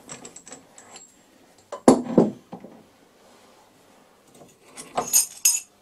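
Steel lathe tooling and parts being handled, clinking and knocking against each other and the tool post. There are light clicks at first, a sharp knock about two seconds in, and a quick cluster of bright clinks near the end.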